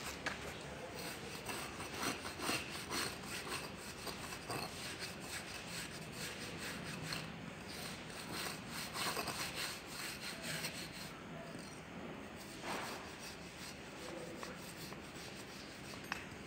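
A steel moulder's trowel scraping over rammed moulding sand in many short, repeated strokes, levelling and smoothing the top face of the sand mould.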